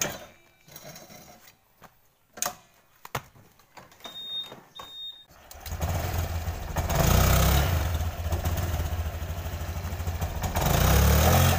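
A few knocks and clicks, then a Honda Scoopy FI scooter's single-cylinder engine is kick-started about halfway through and catches at once. It settles to a steady run and is revved up briefly twice.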